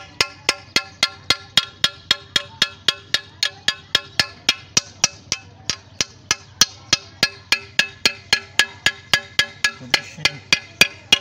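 Hammer tapping steadily on a galvanized iron water pipe elbow, about four ringing metal blows a second, to knock loose the green algae clogging the pipe.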